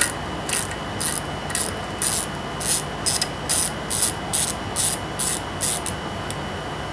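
Hand ratchet clicking in short bursts, about two a second, as it backs out a bolt. The clicking stops about six seconds in.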